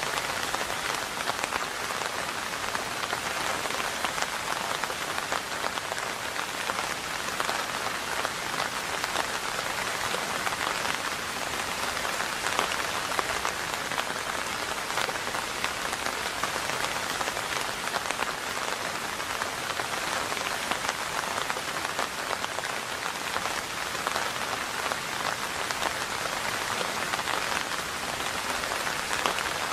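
Steady rain falling, a dense patter of drops on a surface over an even hiss.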